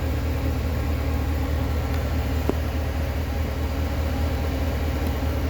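Steady low rumble of running machinery, with one faint click about two and a half seconds in.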